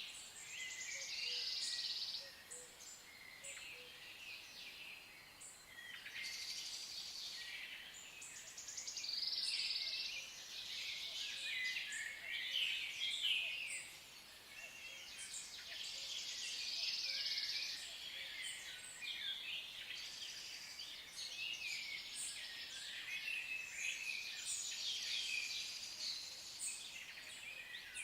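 Several songbirds singing at once, a dense chorus of overlapping chirps and trills that swells and fades in waves.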